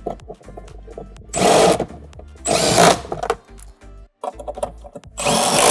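Cordless impact driver with a socket running down nuts, in three short bursts of about half a second each.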